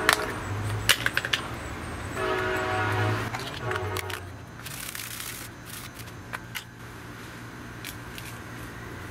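A horn sounds twice: a short blast at the start and a longer one about two seconds in, over a steady low hum. Light taps and a brief dry rustle come from powder being tipped out of plastic cups onto aluminium foil.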